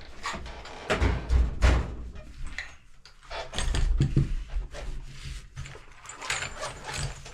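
Hand tools being picked up and set down on a workbench: a run of irregular knocks and clatter, with a few heavier thuds about a second in.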